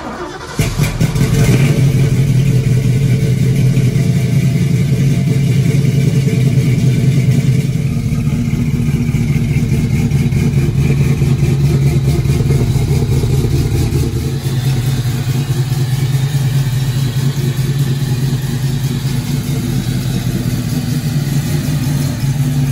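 Ford Mustang Mach 1 V8 running steadily with a loud, low exhaust rumble. The level jumps up about half a second in and then holds.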